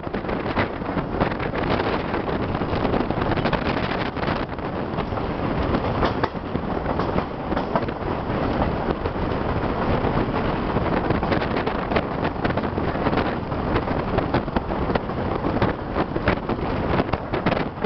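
A moving passenger train heard from one of its own cars: a steady running noise of wheels on the rails, full of small clicks and rattles, with wind buffeting the microphone.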